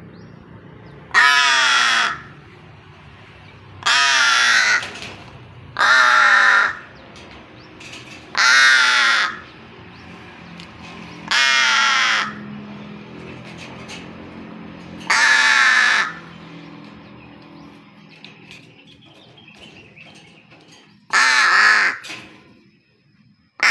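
Pet crow cawing: seven loud, harsh caws, each about a second long, spaced a few seconds apart.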